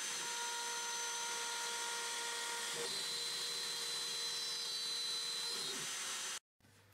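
CNC mill spindle driving a small end mill through a clear plastic block: a steady hiss of cutting under a high whine, whose pitch shifts about three seconds in. It cuts off suddenly near the end, leaving a much quieter room.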